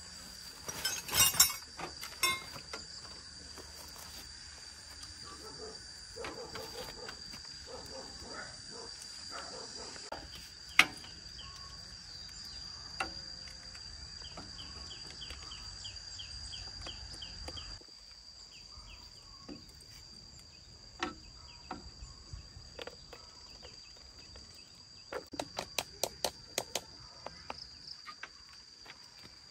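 Insects buzzing in a steady high drone, with scattered clicks, taps and knocks of hands and tools working on a small tractor's battery and wiring, and a quick run of clicks near the end.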